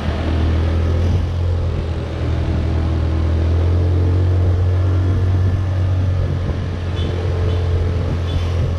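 Riding a motorbike: the engine and road noise of the ride heard from the rider's seat, a steady low drone.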